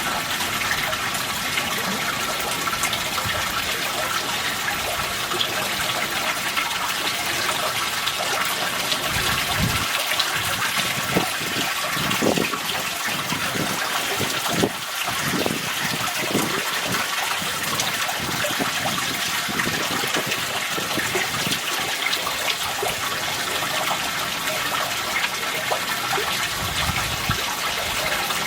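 Koi pond water running and splashing steadily, with a few short low thuds between about ten and seventeen seconds in.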